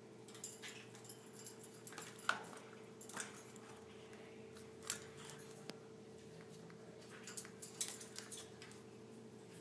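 Scattered light clicks and scrapes as a parrot wearing a plastic cone collar moves about its wire cage, the collar, beak and feet knocking against the bars and perch; the bird is having trouble getting around in the collar after surgery.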